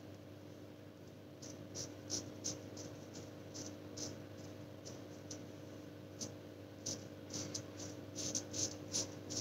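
Short scrapes of a straight-style razor blade cutting chin stubble on skin with almost no lather left, a quick string of strokes that come faster near the end. A steady low hum runs underneath.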